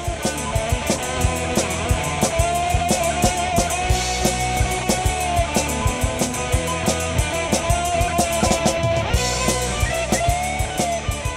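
Outro music: an instrumental rock track with a steady drum-kit beat, guitar and a held melody line.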